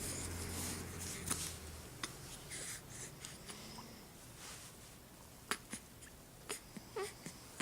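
A four-week-old baby hiccuping: short sharp clicks at irregular intervals, with soft breathing between them. A low steady hum stops about two seconds in.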